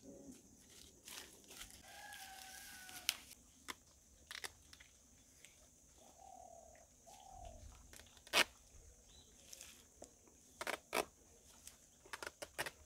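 Faint rooster crowing twice, about two seconds in and again around six seconds, among scattered sharp snaps and rustles of a banana leaf being cut and carried; the loudest is a single snap a little past the middle.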